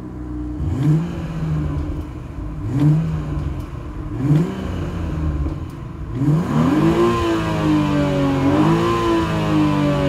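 Exhaust note of a BMW X3 M40i's turbocharged 3.0-litre inline-six revved while standing still: three short throttle blips, then about six seconds in a longer rev that climbs, holds, dips briefly and climbs again.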